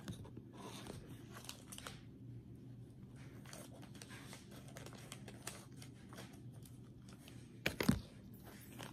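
Clear plastic zip-top bag of loose-leaf tea being handled and worked open: quiet crinkling and rustling of the plastic, with a louder crackle near the end.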